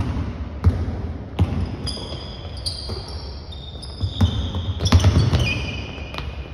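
A basketball bouncing on a hardwood gym floor in a run of irregular thuds as it is dribbled, with sneakers squeaking sharply on the floor many times as players cut and move.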